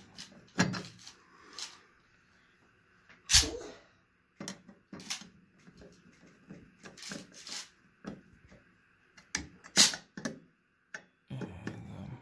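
Screwdriver driving a screw into a metal ceiling-fan mounting bracket: scattered clicks and scrapes of metal on metal, with two sharp knocks about three and ten seconds in.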